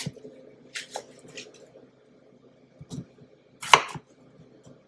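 Kitchen knife slicing through red potatoes and striking a wooden cutting board: a few separate chops, the loudest about three-quarters of the way through.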